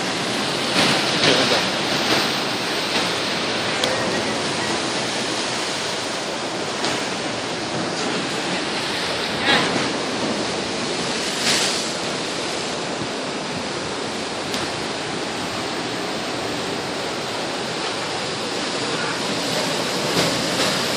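Ocean surf breaking against a lava-rock shoreline: a steady rush of white water with a few louder surges.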